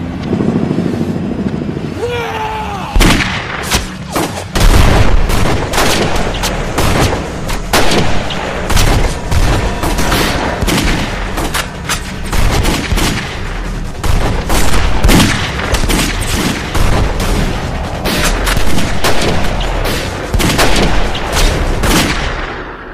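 A long fusillade of gunfire: many gunshots from several guns in quick, uneven succession, starting about three seconds in and going on until near the end.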